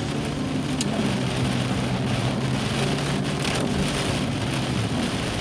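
Heavy rain falling steadily in a downpour, an even hiss of rain on surfaces, with a steady low hum underneath.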